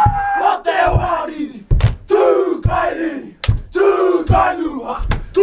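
A group of men chanting and shouting a war dance in unison, in loud short phrases, with a heavy thump about once a second.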